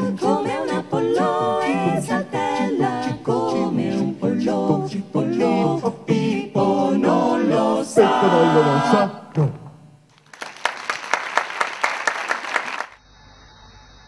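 Mixed men's and women's a cappella vocal group singing in close harmony, with the final held chord ending about nine and a half seconds in. Audience applause follows for about three seconds and is cut off abruptly, leaving a faint hiss.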